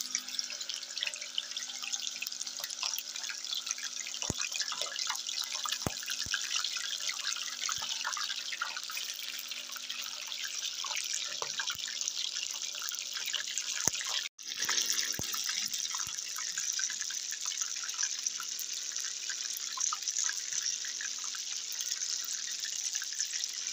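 Chunks of mutton frying in hot ghee in a steel pan: a steady sizzle with many small crackles and pops. The sizzle cuts out for a split second a little past halfway, then carries on.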